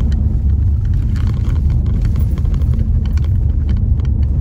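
Steady low rumble of a car driving along the road, heard from inside the cabin: engine and tyre noise.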